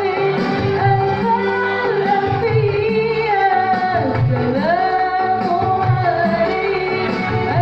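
A shalawat devotional song sung in a melodious voice: long held, wavering sung notes over musical accompaniment with a steady low beat.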